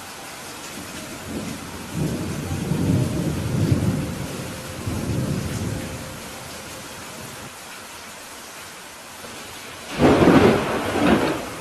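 Steady rain falling through a thunderstorm: a low rolling rumble of thunder swells and fades over the first half, then a louder, sharper thunderclap breaks near the end.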